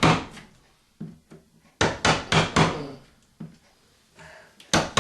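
A chisel being struck into old sheetrock to cut around the edge of an outlet opening: a series of sharp, irregular knocks.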